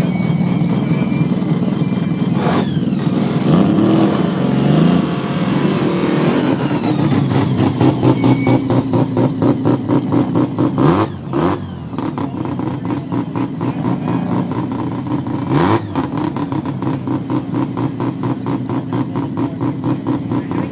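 Car engine idling with a pulsing, uneven beat, blipped up in several brief revs.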